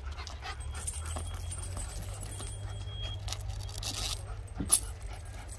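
Metal dog chain clinking and rattling as German Shepherd dogs tug on it while running, with one sharp knock near the end.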